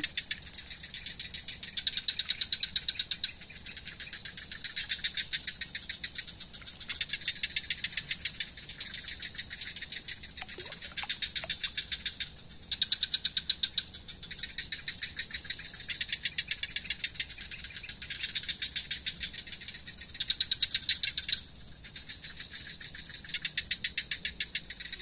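Night insects chirping: high, fast-pulsed calls in bouts of about a second or a second and a half, repeating with short pauses, over a steady high-pitched insect drone.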